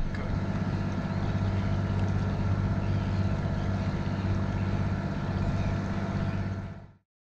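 Catamaran's diesel engines running steadily at low speed while motoring, a low even drone with a fast pulse; it fades out near the end.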